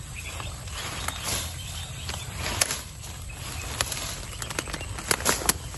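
Footsteps pushing through dense grass and ferns: leaves and stems rustling and swishing, with sharp snaps and cracks that come more often near the end, over a steady low rumble.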